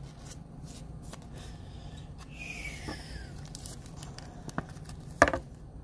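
A trading card being slid into a rigid plastic top loader by gloved hands: faint rustling and small clicks, a brief scraping slide a little before halfway, and a sharp plastic tap about five seconds in.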